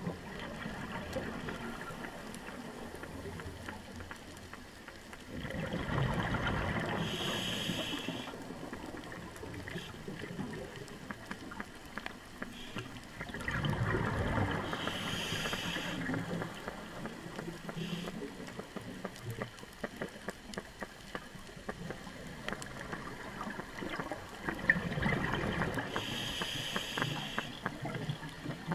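Scuba diver breathing through a regulator underwater, filmed through a GoPro housing: three gurgling bursts of exhaled bubbles, a few seconds long and about eight to ten seconds apart, each followed by a short high hiss. Faint steady crackling runs under them.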